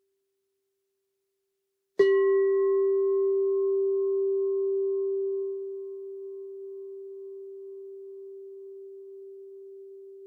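Singing bowl struck once with a mallet about two seconds in, then ringing on a steady low tone that slowly fades; its higher overtones die away within a couple of seconds.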